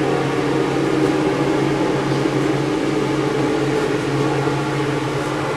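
Steady whirring of an electric fan or blower motor, with a low electrical hum under a rush of air. It starts abruptly and holds an even level.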